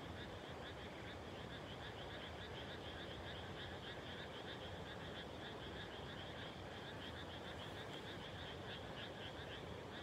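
Chorus of many frogs calling at once, dense overlapping rapid croaks that run on without a break.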